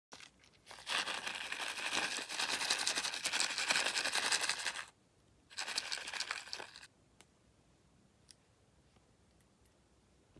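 Crinkling, tearing sound of slime packaging being peeled or torn open, in two stretches: about four seconds long, then a shorter one a little later. Faint small clicks follow.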